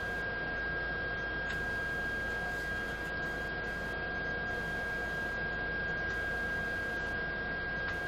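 Steady electrical hum with a constant high-pitched whine over background hiss, and a faint click about one and a half seconds in.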